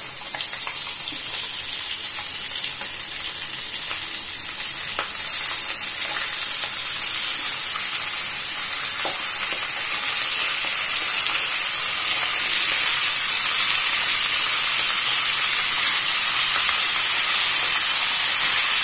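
Oil released by pan-grilled sea bream sizzling in a frying pan as sautéed vegetables are scraped onto the fish with a wooden spatula, with a few light taps of the spatula. The sizzle grows steadily louder.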